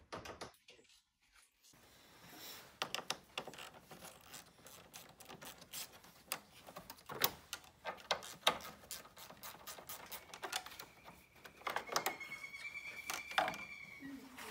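A ratchet and hand tools working at a car battery terminal and plastic engine-bay covers being handled: scattered, irregular clicks, taps and light clatter, with a thin high squeak for a few seconds near the end.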